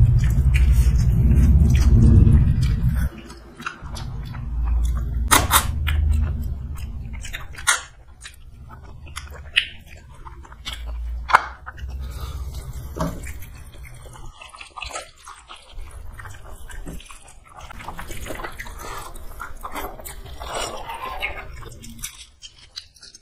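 People chewing mouthfuls of rice, dal and boiled egg eaten by hand, with many short wet clicks and smacks of the mouth. A heavy low rumble dominates the first three seconds and returns briefly a few seconds later.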